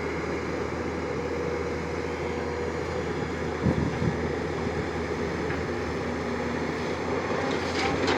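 Tata Hitachi 200 excavator's diesel engine running steadily, with two short knocks a little after halfway.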